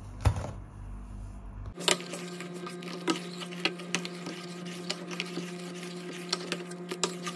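A steady electrical hum from the kitchen, with scattered light clicks and taps of a pot being handled on the stove while milk is put on to boil.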